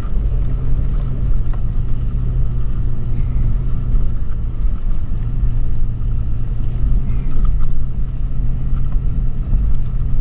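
Toyota 4Runner's V6 engine and drivetrain running at a steady drone while driving, heard from inside the cabin, with a constant low hum under a rumble.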